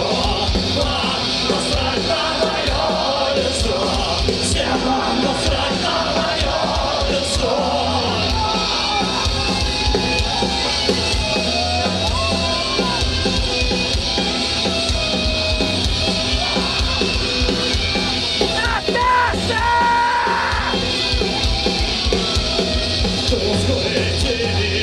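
Live punk rock band playing at full volume: electric guitars, bass guitar and drums through a stage PA, with a shouted vocal.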